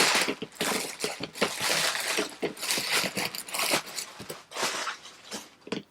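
Packaging being pulled open by hand: dense, irregular rustling and crinkling that thins out toward the end.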